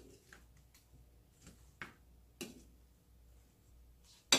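Spatula knocking and scraping against a ceramic bowl while tossing eggplant pieces in sauce: several irregular clicks and taps, the loudest near the end.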